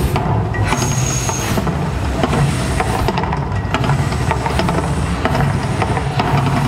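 Mirage volcano show eruption: a loud, steady deep rumble with many sharp cracks and hits over it, the show's percussive eruption soundtrack mixed with the gas fireballs going off.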